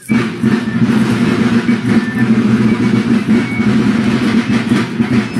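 Drums of a marching folk-procession company beating continuously, starting suddenly right after a fife tune ends, a loud dense rolling sound.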